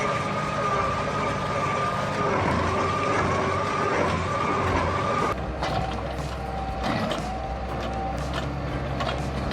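Heavy forestry machine running under load: an engine drone with a wavering whine above it. About five seconds in the sound changes abruptly to a lower drone with scattered clicks and knocks.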